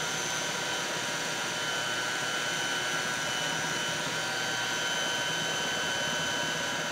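Electric hand mixer running at a steady speed with a steady motor whine, its beaters whipping cream, condensed milk and cocoa into a chocolate mixture in a glass bowl.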